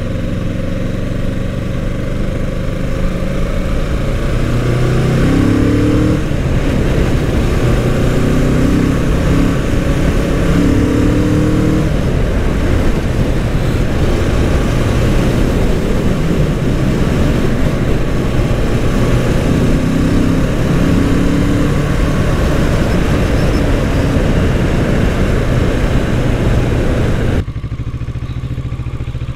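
Kawasaki Z650 parallel-twin motorcycle engine riding at speed, its revs rising in short pulls a few times, under a heavy rush of wind on the microphone. Near the end the sound drops abruptly to a quieter, slower ride.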